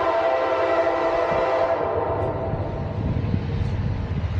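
Train horn sounding one long, steady chord that fades out about two seconds in. The low rumble of the approaching train then builds.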